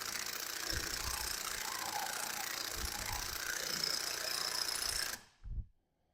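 Impact wrench hammering as it runs a hydraulic cylinder's piston nut down on the rod through a 28 mm socket, then stopping suddenly about five seconds in. A single low thump follows.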